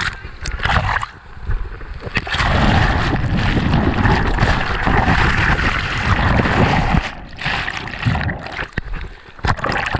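Surf water rushing and splashing close to the microphone, with a loud, steady rush for about four seconds in the middle and scattered splashes and knocks around it.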